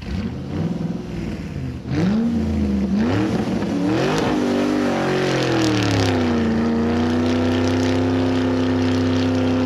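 Car engine revving up and down a few times, then settling into a steady drone for the last few seconds.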